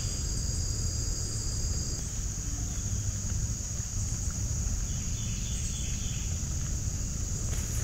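Steady high-pitched insect chorus over a low rumble; a second, slightly lower insect buzz drops out about two seconds in.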